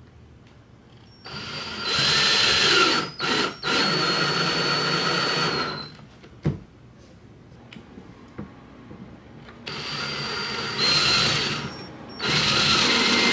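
Ryobi cordless drill running in two long bursts, driving self-tapping screws up into the plastic side splitter. The first burst starts about a second in, with a brief stop partway through. The second starts about ten seconds in and runs harder near the end.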